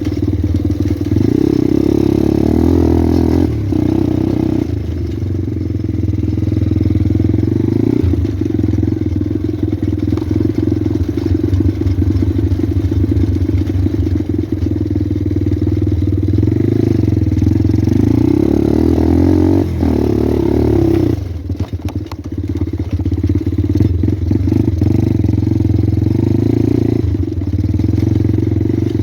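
Pit bike engine running under throttle while riding, the revs rising and falling. About two-thirds through the revs drop briefly with some clatter, then pick up again.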